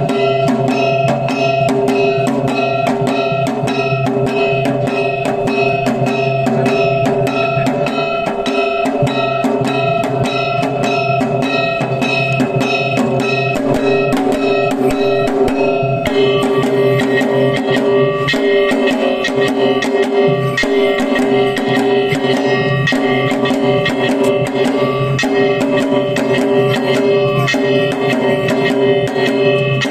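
Lion dance accompaniment: drums beaten in a steady, even rhythm of about three strokes a second over sustained ringing tones. The pitched tones shift about sixteen seconds in.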